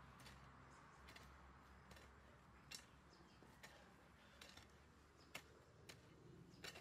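Long-handled hoe chopping and scraping into loose, compost-rich soil: faint short strokes about once a second.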